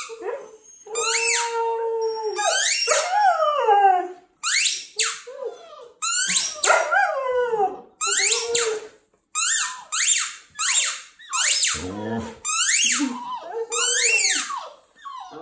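Huskies howling and yipping in a run of short, high calls, one after another with short gaps, most falling in pitch, a few drawn out into brief howls.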